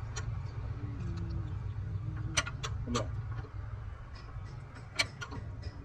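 Steady low machine hum in a lathe workshop, with a few sharp metallic clicks and taps: a cluster about two and a half to three seconds in and one more near five seconds.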